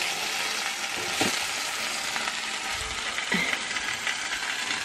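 Marinated chicken sizzling on a hot stove, a steady frying hiss with a few light clicks.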